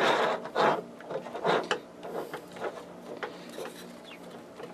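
Wires and connectors being worked into a small switch box by hand: irregular rubbing and scraping, loudest in the first second and again around a second and a half in, then a few softer clicks and knocks.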